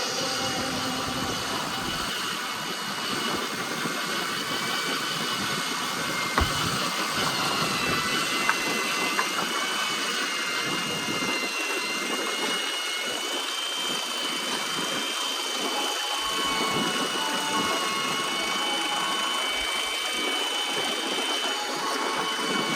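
Fishing boat's engine running steadily under a noisy rush, with a thin high whine that drifts slightly upward, and a couple of sharp knocks about six and eight seconds in.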